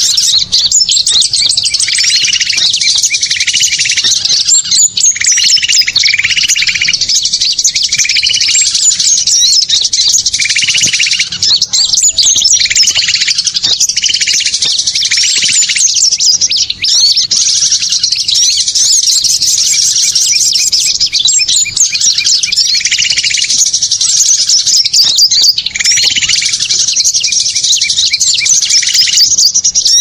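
Loud, dense chorus of many small songbirds chirping and twittering over one another, with a lower call repeating roughly once a second. It is a mixed small-bird lure recording ('suara pikat'), played to draw wild birds in.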